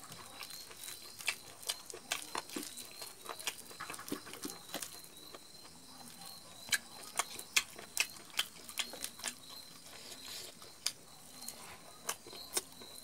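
Close-up eating sounds from a man eating rice and meat curry with his fingers: irregular sharp, wet clicks of chewing and lip smacks, coming more often in the second half.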